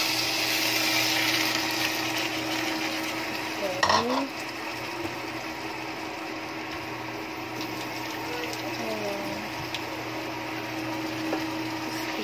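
Chicken livers and onions frying in oil in a pan, a steady sizzle over a constant low hum. There is a short louder noise about four seconds in.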